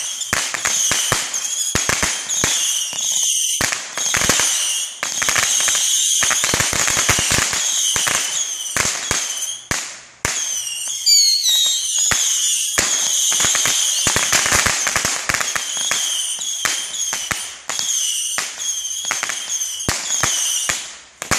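Fireworks going off in a rapid, continuous barrage of crackling bangs, with a steady high-pitched whistle over them. The barrage dips briefly about ten seconds in, then carries on, and it cuts off suddenly at the end.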